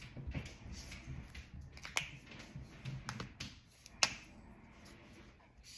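A few sharp clicks and taps as an alcohol ink marker is handled and put down on the table, the loudest about four seconds in.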